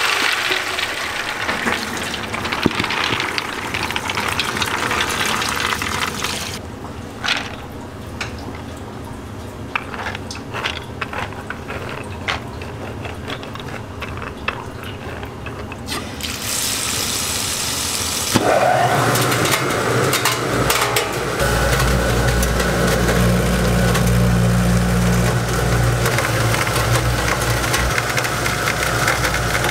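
Soaked soybeans tumbling and rattling into a steel bin. About two-thirds of the way through, a soybean grinder's motor starts running with a steady hum while freshly ground soy milk pours from its chute into a steel pot.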